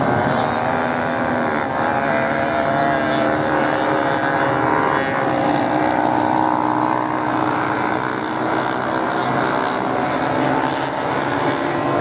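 Several off-road motorcycle engines running together as the bikes race, their overlapping pitches rising and falling as the riders rev and change speed.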